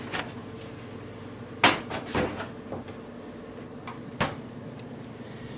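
A few sharp knocks and clicks from objects being handled and set down, the loudest about a second and a half in and again about four seconds in, over a faint steady hum.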